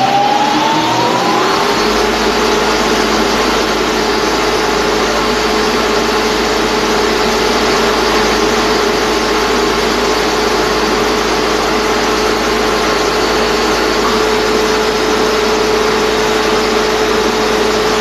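Belt-driven grain hammer mill with a cyclone outlet winding up to speed: its whine rises for about the first two seconds, then it runs at full speed with a steady, loud whine over a dense rushing noise.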